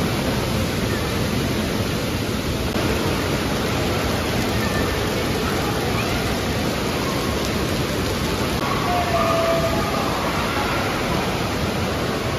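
Steady rush of falling and splashing water mixed with distant voices, echoing through a large indoor water park hall, with a brief faint call about nine seconds in.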